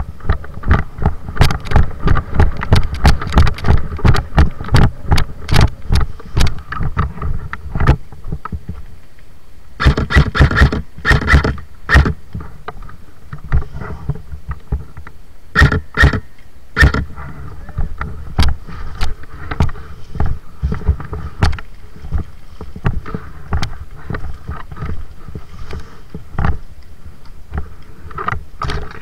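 A long run of sharp knocks and clicks, about two to three a second for the first seven seconds, then in denser clusters around ten and sixteen seconds in, with scattered strikes in between.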